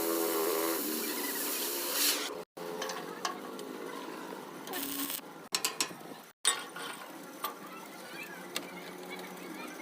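Crackling, frying hiss of arc welding, cut off abruptly twice, with scattered sharp metallic clicks.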